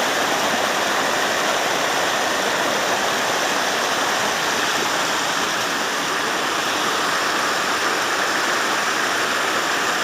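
Large waterfall, a steady even rush of falling water.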